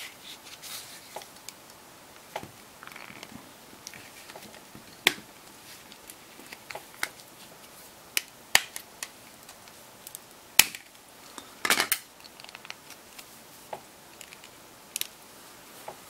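Scattered small plastic clicks and taps from handling an LG G2x smartphone as its back cover and SIM card come out, with a short rattle of clicks about twelve seconds in.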